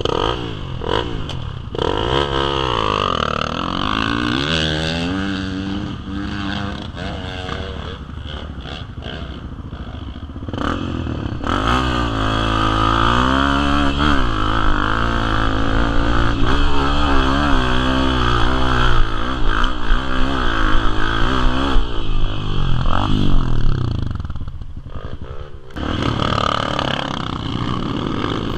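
A motor vehicle's engine running, its pitch rising and falling again and again as the revs change. It is loudest through the middle stretch and eases off briefly near the end.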